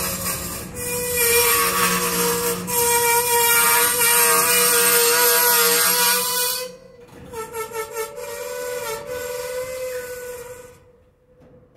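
Freight cars' steel wheels squealing as the train creeps to a stop: a loud high squeal over hiss that drops away about seven seconds in, then a weaker wavering squeal that fades out near the end.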